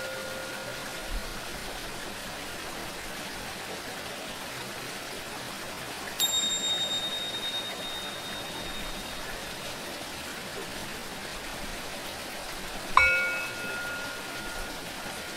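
Steady sound of running water, with two struck metal tones. About six seconds in comes a single high ring, typical of tingsha cymbals, fading over about three seconds. Near the end a Tibetan bowl is struck once, a lower ring with several overtones that fades over a couple of seconds.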